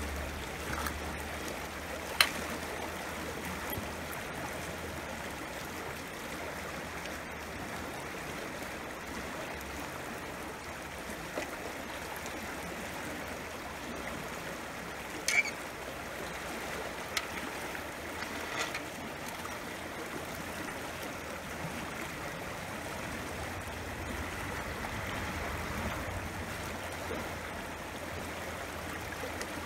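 Shallow, muddy stream rushing steadily over riffles. A few sharp clicks cut through it, the loudest about two seconds in.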